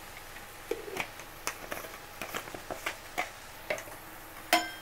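Chicken and masala cooking in a stainless steel pan, giving irregular crackles and pops over a faint steady hiss, with one ringing metal clink of a utensil against the pan near the end.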